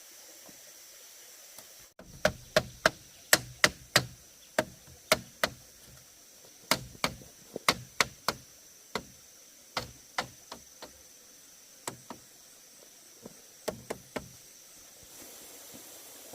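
About two dozen sharp knocks, struck in uneven runs of two to four, starting about two seconds in and stopping shortly before the end.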